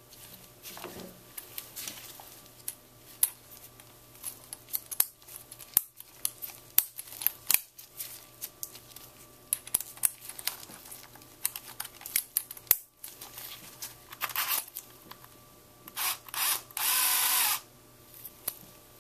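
Scattered clicks and clinks of steel surgical instruments being handled and fitted against a plastic bone model. Near the end a cordless power drill runs in short bursts, the longest about a second, driving the screw-extraction tip.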